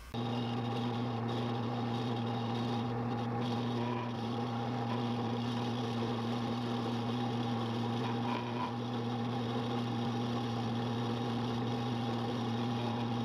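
Small rotary carving tool running at a steady speed, its bit cutting carving detail into a wooden shad-bait lure blank, a constant motor hum that starts abruptly.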